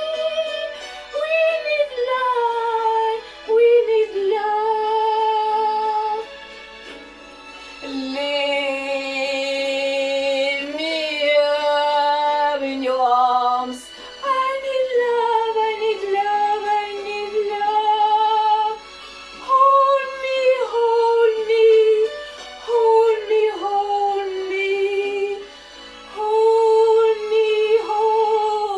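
A woman singing, holding long notes of a few seconds each that glide up and down between phrases.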